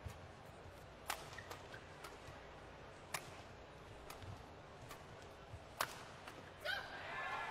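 Badminton rackets striking a shuttlecock in a rally: sharp single cracks a second or two apart. Near the end a burst of voices rises as the rally ends.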